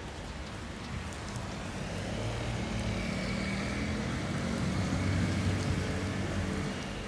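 A car passing along the street, its engine hum growing louder through the middle and fading near the end, over steady outdoor street noise.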